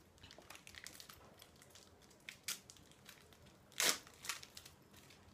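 Cellophane candy wrapper crinkling and tearing as it is peeled off by hand, in scattered crackles with a louder sharp crackle about four seconds in.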